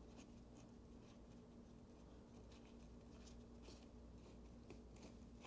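Near silence: faint room tone with a steady low hum and a few scattered faint ticks.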